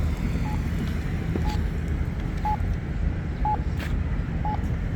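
Campbell Guardian accessible pedestrian signal sounding its locator tone: a short high beep about once a second, over a steady low rumble.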